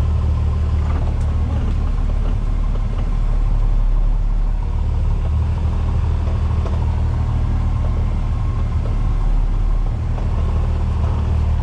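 Diesel engine of a Peterbilt 337 tow truck running steadily, heard from inside the cab, with a low, even drone.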